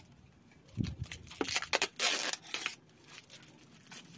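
Parts and packaging of a flat-packed rabbit cage being handled: a low thump about a second in, then a second or so of crinkling, rustling packaging.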